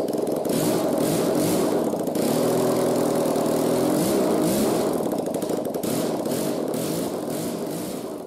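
Honda ST1100 Pan European's 1,084 cc liquid-cooled V4 engine running on a test stand out of the bike, revved up and down by hand several times, without cooling water in it yet. The sound fades near the end.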